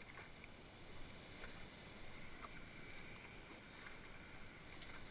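Faint wash of sea water around a stand-up paddleboard, with a few soft light splashes or taps.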